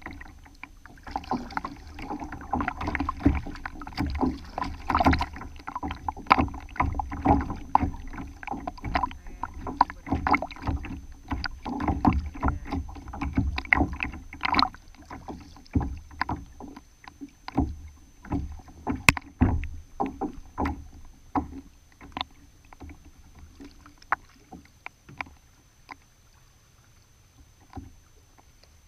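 Water slapping and gurgling against a plastic kayak hull at the waterline, in dense, irregular knocks and splashes. It thins out after about twenty seconds to occasional soft laps.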